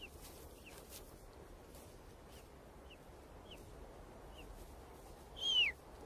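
Golden eagle chicks cheeping at the nest while being fed: faint, short, high peeps that slide down in pitch, about two a second, with one longer, louder call near the end.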